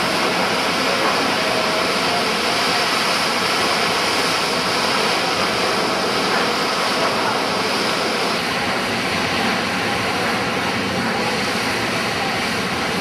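Steady rushing noise of water gushing under pressure from a burst water main in the street, the burst caused by a pressure test of the main.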